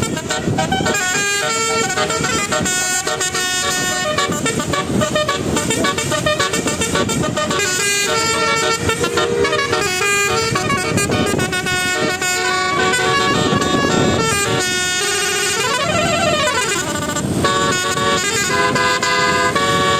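Horns sounding a shifting series of pitched notes, with one tone gliding up and back down about three-quarters of the way through.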